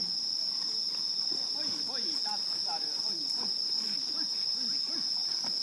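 Crickets giving a continuous, steady high-pitched trill, with faint voices underneath.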